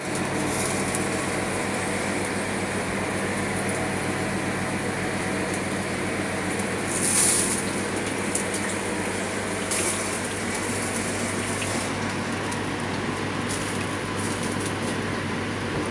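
Charcoal basket chicken grill machine running, giving a steady low hum under a continuous hiss. A brief louder hiss comes about seven seconds in, and a smaller one near ten seconds.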